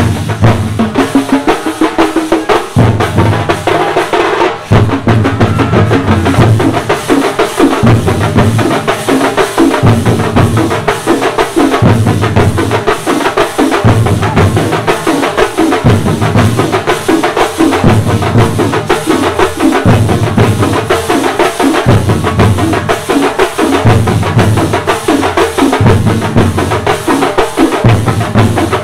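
Massed drums of a street percussion troupe playing a fast, steady rhythm.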